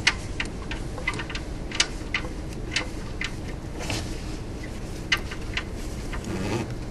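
Light, irregular metallic clicks and ticks as a gloved hand unscrews a loosened oxygen sensor from its threaded port in the exhaust manifold, over a steady low background hum.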